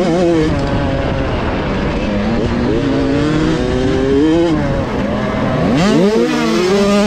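Onboard sound of a 65cc two-stroke motocross bike's engine revving hard, its pitch climbing and holding, dropping off briefly, then climbing again, over wind noise on the microphone. Near the end a second bike's engine is heard close alongside.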